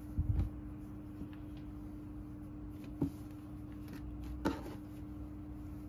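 A sashiko-stitched dishcloth being handled and folded on a wooden tabletop. There are dull bumps just at the start and two light taps, about three and four and a half seconds in.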